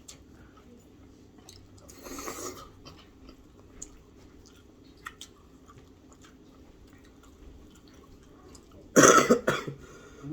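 A person coughing hard near the end, with faint small mouth and eating clicks and a softer throaty burst about two seconds in.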